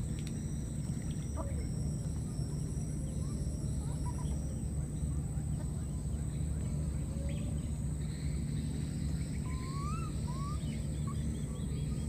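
Outdoor ambience: a steady low hum and a thin, continuous high whine, with scattered faint bird chirps. Near the end come a couple of short rising calls.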